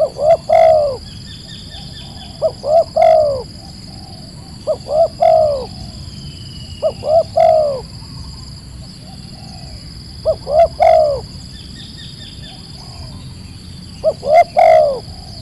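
A dove cooing repeatedly, about six phrases, each two or three short quick notes followed by a longer, fuller coo, with a pause of two to three seconds between phrases. A faint steady high whine runs underneath.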